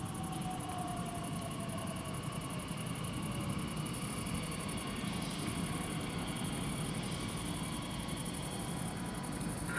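Bombardier Talent 2 (DB class 1442) electric multiple unit rolling slowly into the station, its motor whine falling in pitch as it slows over the first couple of seconds, over a steady low rumble. Insects chirp in a fast, high-pitched pulse throughout.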